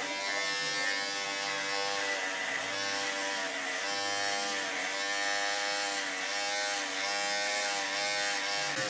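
Corded electric hair clipper buzzing steadily, its pitch dipping briefly several times.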